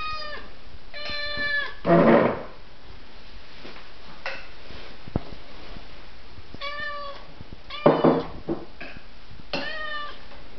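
Tabby cat meowing repeatedly, about four short meows that fall slightly in pitch. Two louder, rougher sounds come about two seconds in and about eight seconds in.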